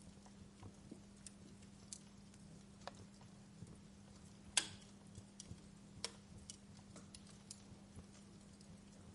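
Wood fire crackling: scattered irregular sharp pops and snaps, one louder pop about halfway through, over a faint steady hiss.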